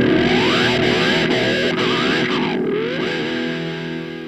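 Background music with distorted electric guitar, ending on a held chord that fades out near the end.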